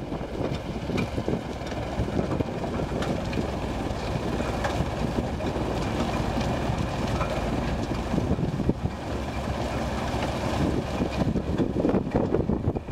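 Portafill 5000CT mobile screener running as it screens manure: steady machine noise with a constant dense clatter from material on the finger screen deck.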